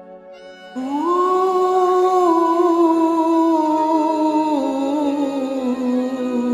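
Karaoke backing music in a song's intro: a soft held chord, then about a second in a loud sustained melody line that slides up into its first note and steps down through long held notes.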